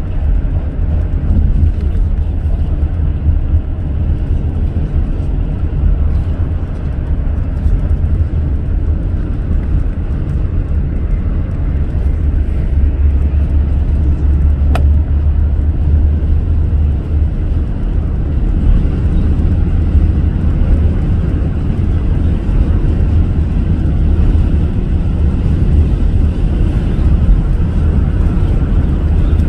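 A car driving on a city expressway: a steady, deep rumble of road and engine noise with no letup, and a single faint click about halfway through.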